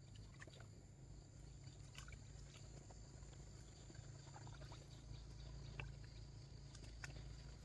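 Faint scattered water splashes and drips, as short soft clicks, over a steady low hum.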